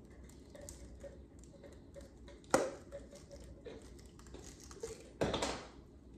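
A spoon working minced garlic out of a small jar over the pot: a sharp tap about two and a half seconds in, a few light ticks, and a short scraping rustle near the end.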